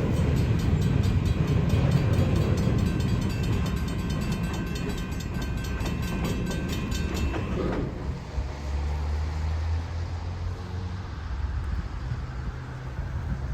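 Train passing, a heavy rumble with a fast, even clatter of wheels over the rails. About two thirds of the way in the clatter stops abruptly and the sound drops to a quieter, steady low hum.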